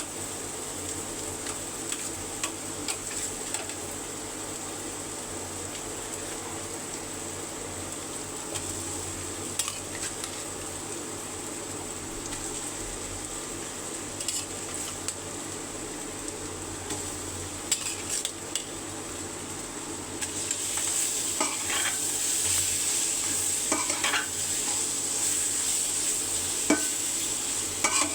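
Curry ingredients sizzling in hot oil in a cooking pot while a spatula stirs them, with scattered clicks and scrapes of the spatula against the pot. The sizzle grows clearly louder about twenty seconds in.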